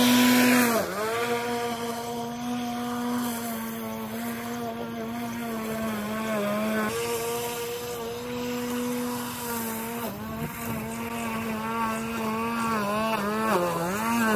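Litheli 2x20V (40 V) cordless brushless 17-inch lawn mower running with a steady whine as it cuts very tall, overgrown grass. Its pitch sags briefly under load about a second in and several times near the end.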